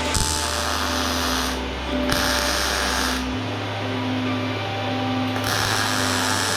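Electric arc welding in three short bursts, each a second or so of crackling hiss that starts and stops sharply, as beads are laid on a steel box. Background music with a steady bass line plays underneath.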